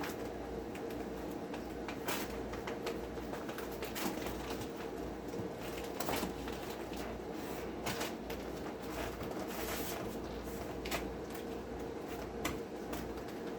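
Window air conditioner running with a steady hum and a low rumble, with occasional light clicks. It has just been installed and switched on.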